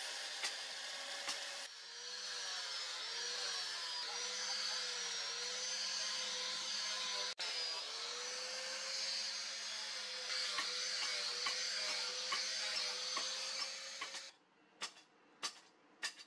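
Angle grinder running with an abrasive disc against the steel cleaver blade, its motor whine wavering in pitch as the disc is pressed on and eased off. Near the end the grinder stops and a few sharp clicks follow.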